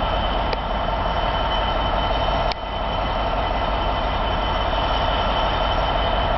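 Class 66 diesel locomotive's two-stroke EMD V12 engine running with a steady low rumble and a constant hum, with two faint clicks.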